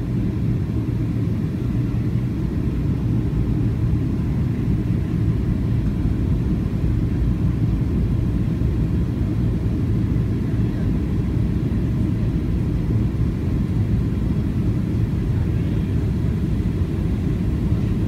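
Steady low rumble inside an airliner's cabin during descent: jet engine and airflow noise heard from a window seat over the wing.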